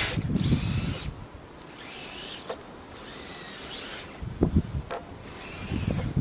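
Brushless electric motors of an RC snowcat whining in short bursts, the pitch rising and falling as the throttle is worked. Low dull thumps come in a few seconds in and again near the end.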